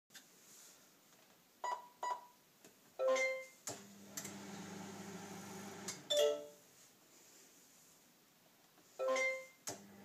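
Microwave oven with a Raspberry Pi-driven touchpad: two short button beeps, then a short multi-note chime from its added speaker. A relay clicks and the oven hums as it runs for a couple of seconds, another chime sounds, and near the end a third chime and a click start the oven humming again.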